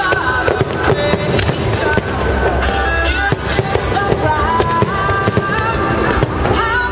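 Aerial fireworks display: shells bursting one after another with bangs and crackling, while music plays underneath.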